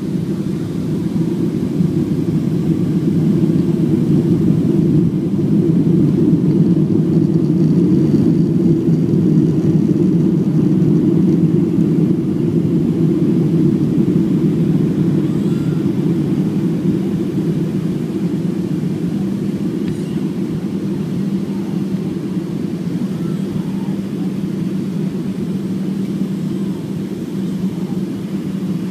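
Jet airliner cabin noise on approach to landing: the steady rumble of the engines and airflow, with a low steady hum. It swells slightly over the first several seconds and then eases a little.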